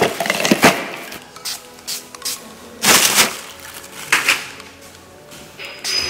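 Plastic bag of bottle caps and empty plastic bottles rustling and clattering as they are handled in a cardboard box, in several short bursts, with a short hiss of a pump spray bottle of sanitizer near the end. Soft background music underneath.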